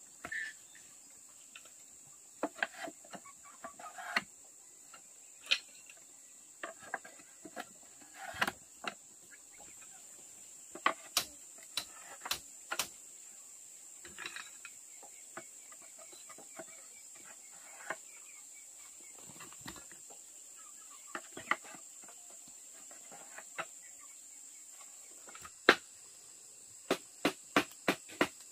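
Steady high-pitched insect drone, with scattered sharp clicks and knocks and a few short calls now and then.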